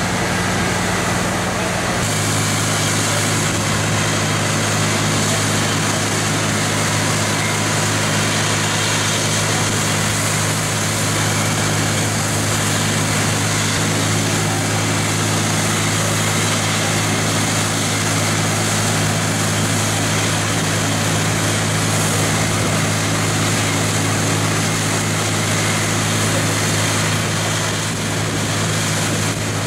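Heavy diesel machinery of a blasthole drill rig and crane truck running steadily at constant engine speed: a low, even hum under a broad hiss. The hum's pitch drops about two seconds in, then holds.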